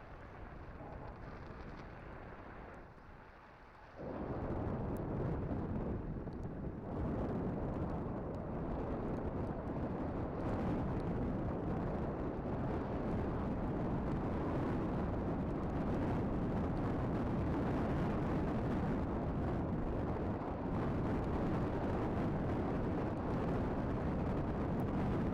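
Wind buffeting the microphone of a camera on a moving road bike, a heavy low rumble that jumps louder about four seconds in and then holds steady.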